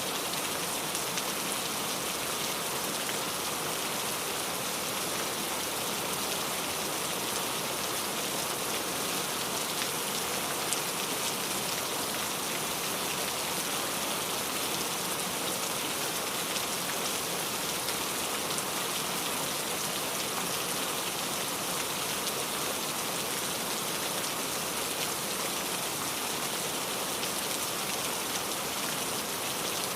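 Steady rain falling, an even hiss with many fine scattered drop patters on a surface.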